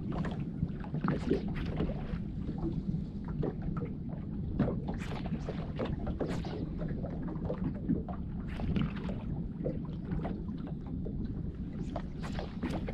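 Water slapping and splashing in irregular bursts over a steady low rumble, as heard from a small boat on the water.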